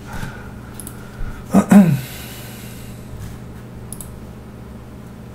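A brief wordless vocal sound from a man, about one and a half seconds in, then a single computer mouse click near four seconds, over a steady low hum.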